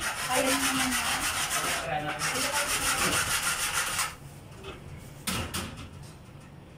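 Steady abrasive scraping, rough and fast-rippled, for about four seconds before it stops; a couple of sharp knocks follow a second later.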